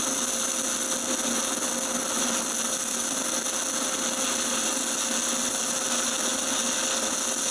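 Steady hiss of a stick-welding (MMA) arc from a 2.5 mm E7018 basic-coated electrode laying a second pass in the vertical-up (PF) position.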